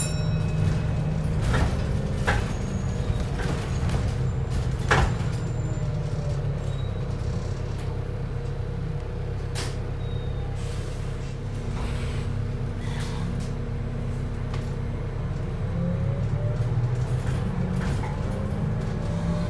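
Wright New Routemaster hybrid bus heard from inside, running on its diesel engine alone: a steady low engine drone whose pitch shifts as the bus drives. Several sharp knocks and rattles from the body, the loudest about five seconds in.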